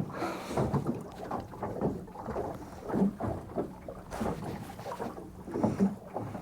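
Small waves slapping and lapping against the hull of a small boat in short, irregular splashes, with light wind on the microphone.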